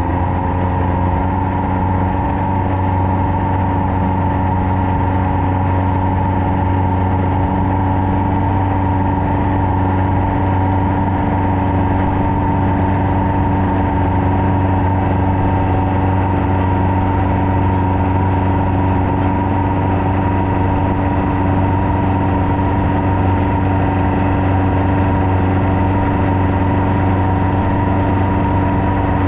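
Long-tail boat's engine running steadily under way, its drone holding one even pitch with no change in speed.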